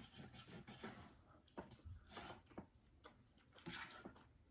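Near silence with faint close-up chewing and a few soft scattered clicks.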